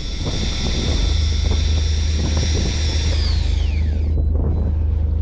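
Electric fishing reel winding in line with a steady high motor whine that falls in pitch and stops about three to four seconds in. Under it is the steady low hum of the boat's engine, with wind noise on the microphone.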